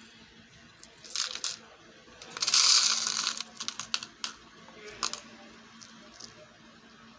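Small fan-shaped gold-tone metal charms clinking and clattering as they are handled and dropped into a plastic compartment box of loose charms. A few clicks come about a second in, a dense rattle of many pieces comes about two and a half seconds in and is the loudest part, and single clinks follow until about five seconds in.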